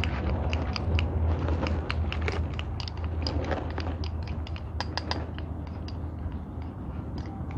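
Metal spoon stirring a thick shrimp-paste mixture in a small cup, scraping and clicking against the cup's sides in quick, irregular taps.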